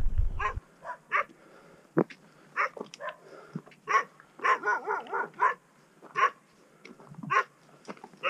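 Dog barking repeatedly: a dozen or so short barks at irregular intervals, some in quick runs.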